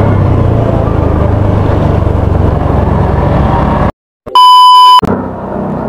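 Motorcycle engine running with road noise while riding, then about four seconds in the sound cuts out and a loud, steady colour-bar test-tone beep sounds for under a second before the riding noise returns.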